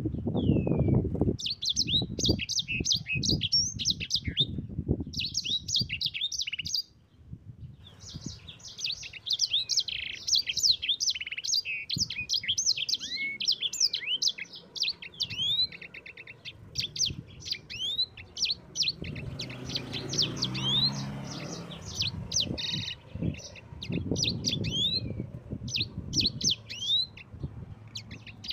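A sanger songbird singing a long, rapid rolling song of fast chirps, trills and quick upward and downward whistled sweeps, pausing briefly about a quarter of the way in. Low knocking and rumbling noises sit underneath at the start and again later on.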